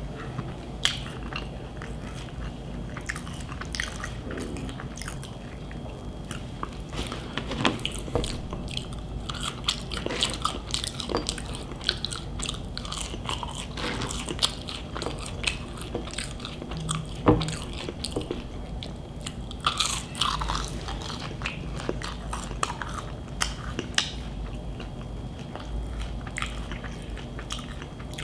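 A person chewing and biting into fast food close to the microphone, with crunchy bites and many short sharp mouth clicks scattered throughout.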